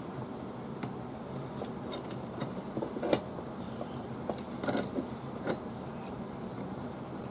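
Adjustable wrenches working the locking nuts on a golf cart's brake cable rod: scattered small metal clicks and scrapes as the nuts are tightened, the loudest about three seconds in, over a low steady hum.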